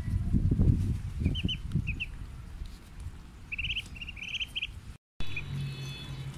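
Muscovy ducklings peeping in short, high, rising calls, a few about a second in and a quicker run from about three and a half seconds. Low thuds and rustling fill the first two seconds.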